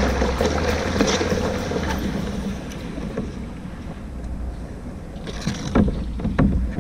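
A small boat under way on a canal: steady water and engine-like rumble with some wind on the microphone, easing off partway through, then a few sharp knocks near the end.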